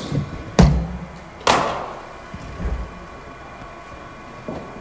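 A heavy low thump, then about a second later the sharp crack of a cricket bat hitting a machine-bowled ball, ringing briefly. A duller thump follows about a second after that.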